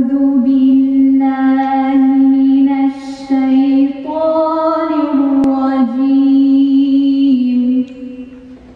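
A woman's solo voice chanting a Quranic recitation in Arabic, in long held, ornamented notes, with a short breath about three seconds in. Her voice stops near the end and its echo dies away in the stone cathedral.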